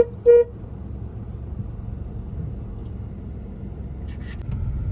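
Car horn giving two short toots at the very start, then the steady low rumble of a car driving slowly over a rough track, with a brief clatter about four seconds in.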